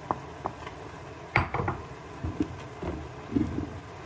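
Wooden spatula pushing shredded carrots off a ceramic plate into a pan, giving irregular clatters and knocks of wood and crockery. The loudest comes about a second and a half in, followed by a quick cluster and a few softer taps.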